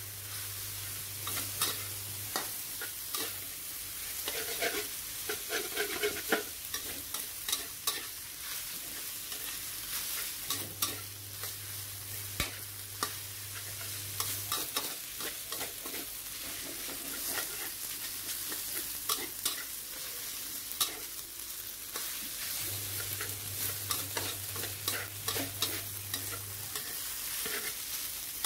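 Cabbage, minced pork and glass noodles sizzling in a wok while a metal spatula stirs and tosses them, its strokes scraping and tapping on the pan. A low hum comes and goes three times underneath.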